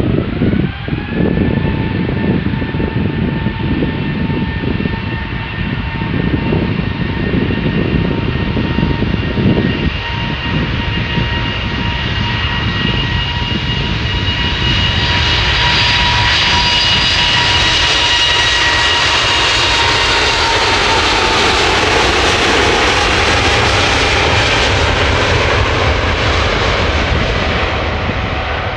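Airbus A380's four jet engines spooling up to takeoff thrust, their whine rising in pitch in the first second, then the takeoff roll: a steady roar that grows loudest as the airliner passes about twenty seconds in, with the whine dropping in pitch as it moves away. Wind buffets the microphone in the first half.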